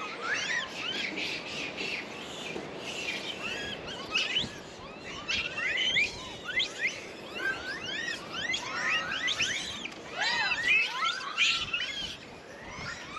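Many Japanese macaques giving short, overlapping coo calls, each rising and then falling in pitch.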